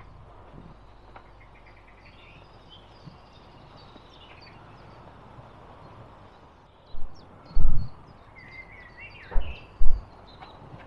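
Small birds chirping and singing, with one longer warbling phrase a little after the middle. In the second half, four brief, loud, low rumbles hit the microphone.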